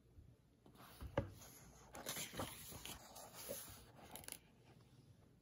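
A paper page of a hardback picture book being turned by hand: a soft paper rustle lasting about three and a half seconds, with a light tap about a second in.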